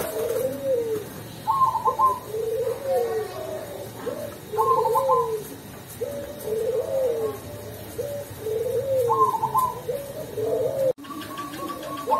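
Perkutut Cemani (zebra dove) cooing in repeated phrases of low arching coos, with a higher rapid trilled note coming back about every three seconds. The sound breaks off for an instant near the end.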